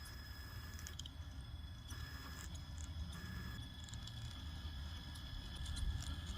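Faint, steady high whine with scattered small clicks and crunches: a 1/10-scale Traxxas TRX4 RC crawler on TRAXX tank tracks creeping slowly along a balance beam in snow.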